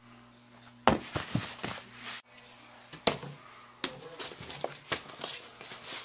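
Handling and movement noise: scattered knocks, thumps and rustling over a low steady hum, with a sharper knock about a second in and another about three seconds in. The sound drops out briefly a little past two seconds.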